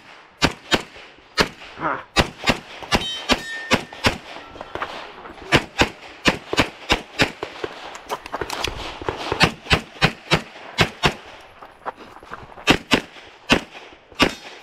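Competition pistol firing in fast strings of shots, with short pauses between strings, one of them for a magazine change.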